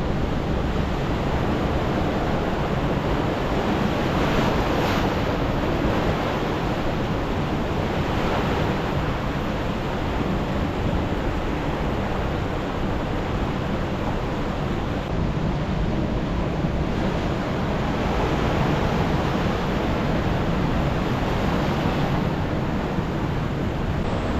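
Ocean waves washing against coastal rocks: a steady rushing with a few stronger surges, and wind rumbling on the microphone.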